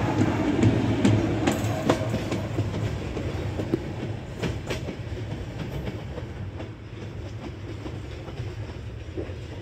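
Freight train's flat wagons rolling past, steel wheels clattering on the rails with scattered sharp clicks. The sound is loudest at first and fades steadily as the end of the train, a container wagon, draws away.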